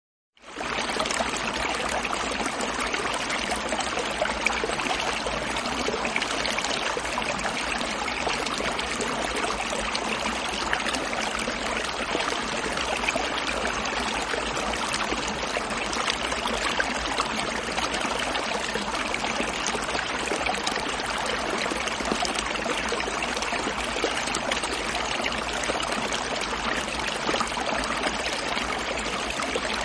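A stream gurgling and trickling in a steady, unbroken rush of water, coming in from silence about half a second in.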